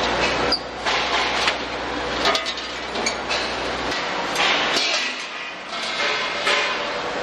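Factory workshop noise: machinery running with a steady clatter and irregular metallic clanks and knocks.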